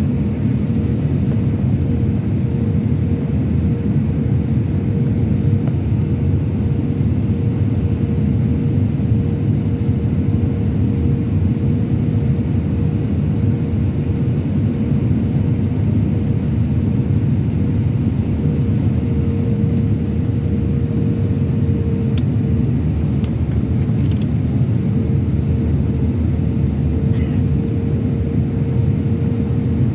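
Airbus A319-100 cabin noise in flight: a steady low rumble of engines and airflow heard from a window seat over the wing, with a constant hum running through it.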